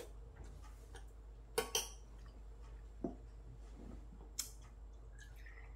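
Tableware clinking during a meal: a metal spoon against ceramic bowls and a glass soju bottle being handled, as four sharp separate clinks over a quiet room.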